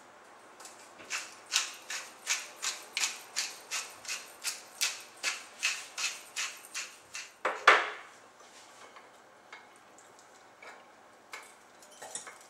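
Pepper mill grinding black pepper in quick even twists, about three a second for some six seconds, followed by one louder knock and a few faint handling clicks.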